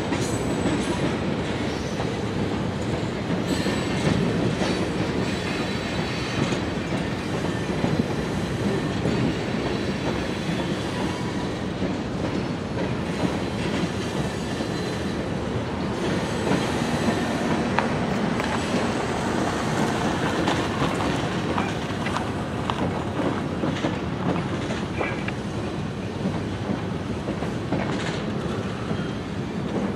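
Freight train of boxcars and tank cars rolling past at steady speed: a continuous rumble of steel wheels on rail with the clicks of wheels over rail joints and a faint high wheel squeal now and then.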